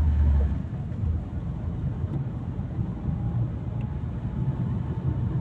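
A motor vehicle's engine running with a steady low rumble; a deeper hum drops away about half a second in.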